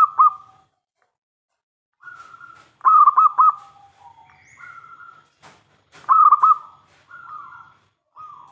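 Zebra dove (perkutut) cooing: two loud bursts of quick rolling coos, about three and six seconds in, with softer drawn-out coo notes between and after. Two brief sharp clicks come just before the second burst.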